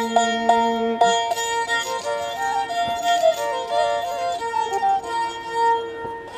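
Nepali sarangi being bowed, playing a folk melody over a steadily held note, with a lower held note that stops about a second in.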